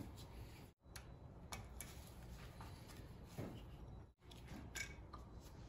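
Faint rustles and light taps of gloved hands handling a scooter's front fork and brake cable. The sound cuts out to dead silence twice, about a second in and again past the middle.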